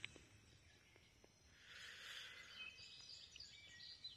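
Near silence: faint outdoor ambience, with a soft hiss that swells for about a second in the middle and faint bird chirps near the end.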